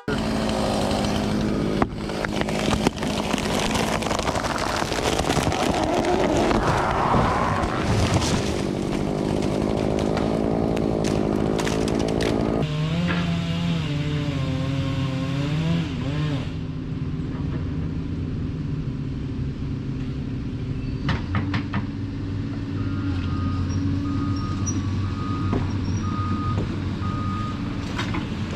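Engine of the tree-felling machinery running hard. About halfway through its pitch wavers up and down, then it settles to a quieter, steadier run.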